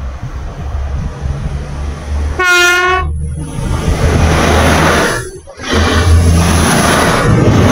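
ČD RegioPanter electric multiple unit giving one short horn toot as a greeting about two and a half seconds in. It then rolls past close by with a loud, steady rumble of wheels and a low motor hum.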